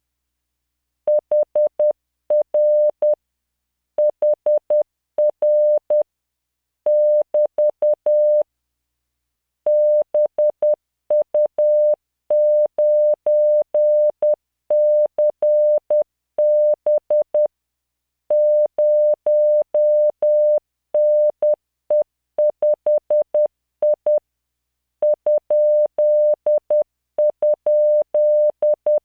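Computer-generated Morse code at 10 words per minute: a single steady 600 Hz beep keyed in short dots and longer dashes. It sends random five-character groups of letters, numbers and punctuation, with short pauses between groups, starting about a second in.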